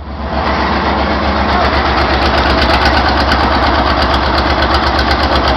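Loud Deutz V12 diesel engine, freshly started and smoking, running on a stand. It swells up within the first half second, then runs steadily with a fast, even pulse.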